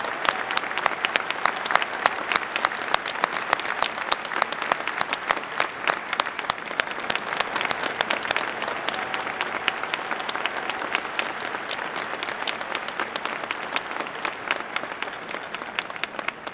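Large crowd applauding in an arena, many hands clapping at once, slowly fading toward the end.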